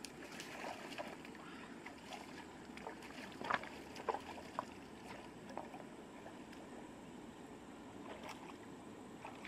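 Water sloshing and lapping, with a few short splashes or knocks standing out about three and a half to four and a half seconds in.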